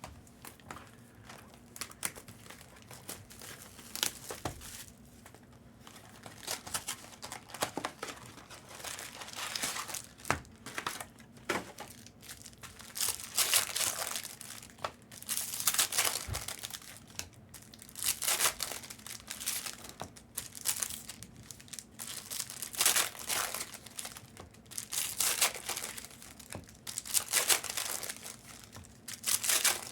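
Plastic trading-card pack wrappers and packaging crinkling and tearing as 2024 Panini Prizm retail football packs are handled and ripped open, in irregular bursts.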